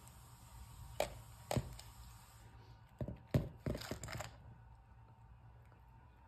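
Plastic treat-dispensing ball knocking and clattering on a hard floor as a cat bats it for its food: two knocks about a second in, then a quick cluster of knocks about three to four seconds in.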